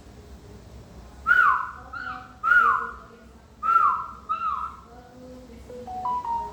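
Five short, loud whistle-like notes, each sliding down in pitch, come in quick succession; a few softer, steadier tones follow near the end.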